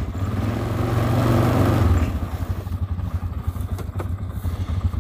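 ATV engine running under throttle, then easing back to a pulsing idle about two seconds in. A couple of faint clicks come near the end.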